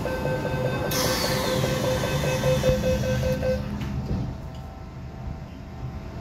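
MTR M-Train door-closing warning: a rapid beeping at one steady pitch while the train's sliding doors close, with a hiss starting about a second in. The beeping stops after about three and a half seconds, leaving the train's steady hum.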